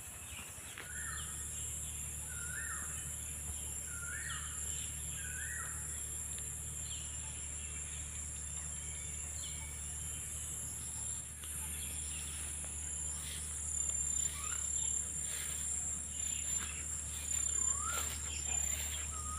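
Steady high-pitched chorus of insects, with a bird repeating a short rising call four times in the first few seconds and again a few times near the end. Footsteps rustling through grass come in over the second half.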